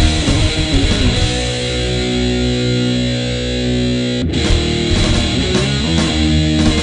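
Heavy metal music with distorted electric guitars and drums, no singing. A chord rings out for a few seconds, then breaks off sharply about four seconds in and the full band comes back with a driving riff.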